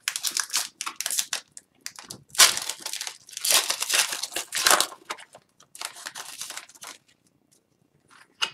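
Foil wrapper of an Upper Deck Series 1 hockey card pack being torn open and crinkled by hand, in several bursts of crackling, going quiet near the end.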